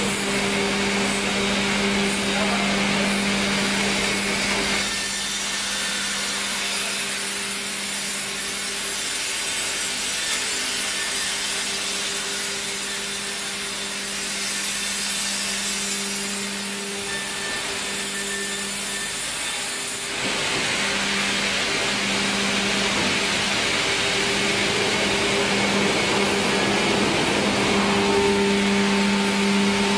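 Sawmill log line running: electric motors hum steadily under the continuous noise of a debarker scoring blade and saw cutting into a log's bark. The cutting noise drops back a few seconds in and grows louder again about two-thirds of the way through.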